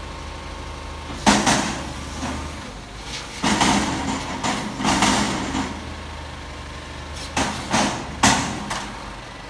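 Front-loading garbage truck running steadily while its hydraulic forks lift a dumpster over the cab and tip it into the hopper. The metal container bangs and clatters as it is dumped and shaken out: one loud bang about a second in, a run of clatter in the middle, and several sharp bangs near the end.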